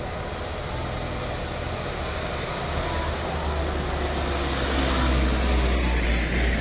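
Diesel engines of light trucks, a Mitsubishi Colt Diesel and a Hino dump truck, pulling up a hill toward the microphone: a low engine drone that grows louder as they approach.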